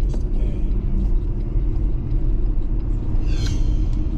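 Steady low road rumble of a car heard from inside the cabin while driving at low speed. A brief hiss comes about three and a half seconds in.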